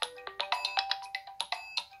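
LG Q7 smartphone ringtone playing: a fast melody of short, sharply struck pitched notes, several a second.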